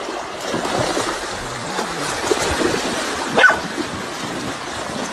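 Creek water rushing steadily around a swimming dog. The dog gives one short, high rising yelp about three and a half seconds in, the loudest sound.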